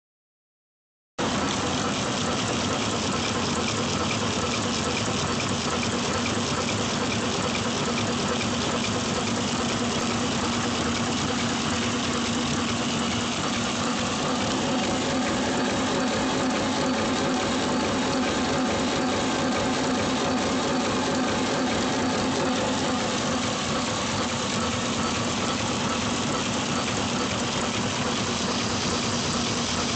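Packaging machine fitted with a thermal transfer coder running steadily at high speed: a dense, even mechanical whir with a steady low hum, cutting in about a second in.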